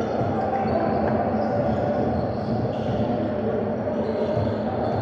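Echoing gymnasium noise during a basketball game: a steady hubbub of voices with a basketball bouncing on the hardwood court.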